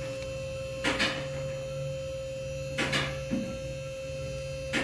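Three or four short metallic clicks and scrapes from a rear disc brake caliper and pads being handled and pushed into place, over a steady electrical hum.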